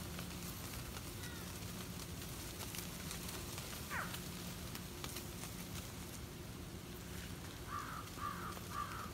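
A large flock of American crows cawing: one falling caw about four seconds in and three quick caws near the end, with a faint call earlier. A steady low hum and hiss run underneath.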